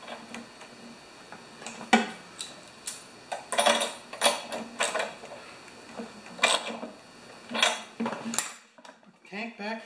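Metal hand tools clinking and knocking: a T-handle socket wrench and sockets being handled and laid on a metal tray, in short separate clicks spread over several seconds.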